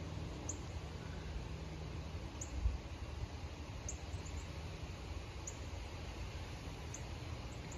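Faint outdoor ambience: a steady low rumble with a short, high chirp repeating about every second and a half, and one soft low bump near the middle.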